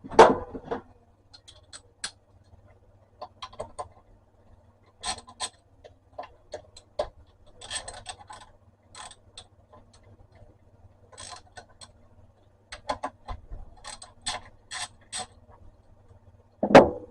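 Irregular metallic clicks, taps and knocks of hand tools and small parts being worked on an electric hand planer's blade drum as its new blades are fitted, with a louder knock at the start and another near the end.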